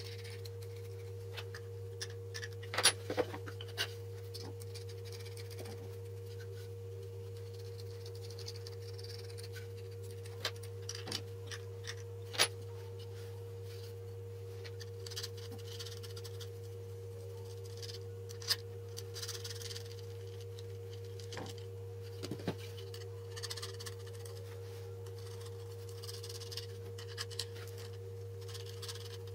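Scattered light clicks and knocks as small jig parts are handled and fitted: steel bolts with plastic rollers pushed through slotted MDF arms and set down on a wooden tabletop. There is a sharper knock about three seconds in and another around twelve seconds, over a steady low two-tone hum.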